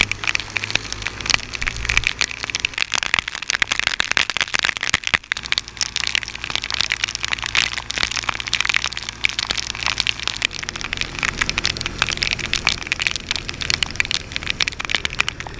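Rain hitting an action camera's housing: a dense, continuous crackle of drop impacts. Underneath is a low, steady engine hum that shifts slightly about ten seconds in.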